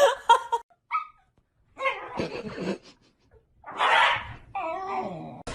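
A dog barking a few times, then giving a wavering whine near the end.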